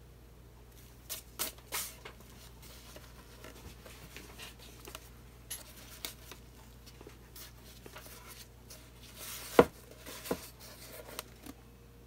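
Handling noises around a canvas on a painting spinner: scattered light clicks, taps and scraping, a few knocks about a second and a half in and one sharp knock about nine and a half seconds in.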